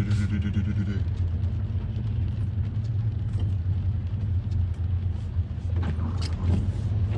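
Steady low road and engine rumble heard inside a car driving slowly, with a brief buzzing tone over the first second.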